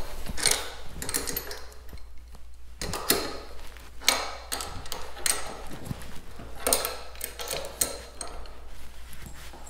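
Socket ratchet clicking in short runs, with metal clinks, as the nuts on a Grizzly Viper barrel vise clamp are tightened down onto a rifle barrel.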